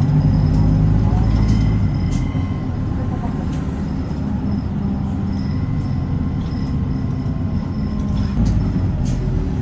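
City bus engine and road noise heard from inside the cabin as the bus drives, with light rattles and clicks from the bus body. The engine note eases about two seconds in and rises again near the end.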